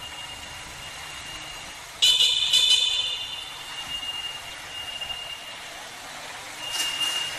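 CPI DTR 150 single-cylinder motorcycle climbing a steep parking ramp in second gear. A sharp high-pitched squeal cuts in about two seconds in and fades over a second or so, and a shorter squeal comes near the end.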